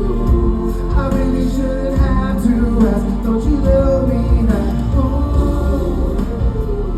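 Live pop song performance: sung vocal lines and harmonies without clear lyrics over a steady accompaniment with strong bass.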